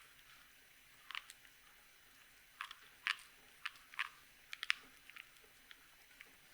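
Typing on a Gok 7V plateless mechanical keyboard with lubed Black Cherry Pie switches and GMK keycaps: soft, irregular keystrokes, some in quick clusters of two or three, with short pauses between.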